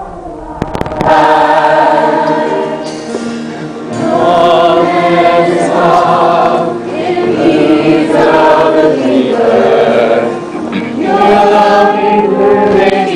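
A musical-theatre ensemble singing together in chorus, many voices in long held phrases, close-up from among the singers onstage.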